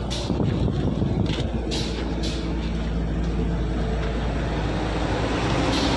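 A steady, low mechanical drone of an engine running without change, heard beside a lorry's rear axle during chassis greasing.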